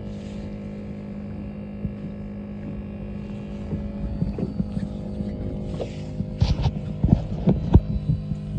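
A steady motor hum aboard a boat. Several knocks and clunks come in the last couple of seconds as gear in the boat is handled.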